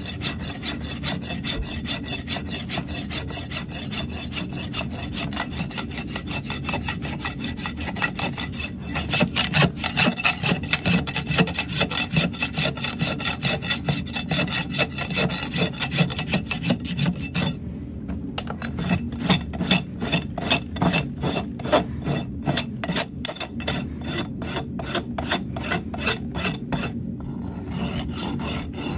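Farrier's rasp drawn rapidly back and forth over a horse's hoof wall and shoe edge, a fast, even scraping of many short strokes with brief pauses about 18 and 27 seconds in. This is the finishing stage after shoeing, blending the wall down to the shoe.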